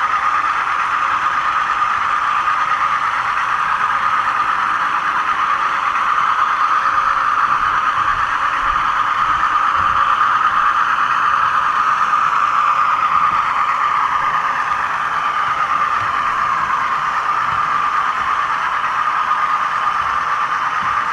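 HO-scale model 600 class train running along the track, heard from a camera riding on it: a steady whine from its electric motor and running gear.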